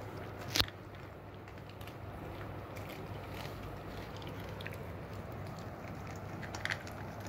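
Small dogs eating from bowls: chewing and crunching kibble mixed with steamed vegetables, with faint scattered ticks. A sharp click about half a second in and a smaller one near the end.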